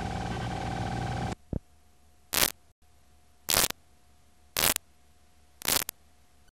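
Videotape playback noise: a steady hiss with a faint hum stops abruptly about a second in. Then come four short bursts of static, roughly one a second, as the tape runs onto a blank, unrecorded stretch.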